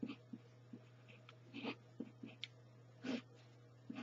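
Felt-tip marker writing on paper: short, irregular scratchy strokes as characters are drawn, a couple of them louder. A faint steady low hum runs underneath.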